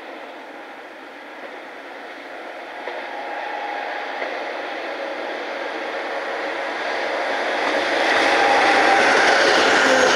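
A DB class 218 diesel locomotive hauling a car-shuttle train of loaded flat wagons approaches, growing steadily louder. From about eight seconds in, the wheels of the passing locomotive and wagons on the rails are loud.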